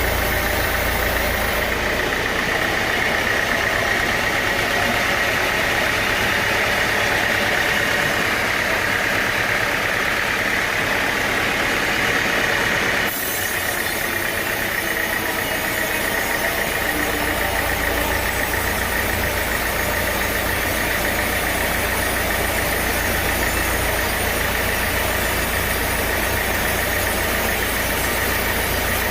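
Sawmill machinery running steadily: an engine with a constant high whine over it, shifting abruptly once about thirteen seconds in.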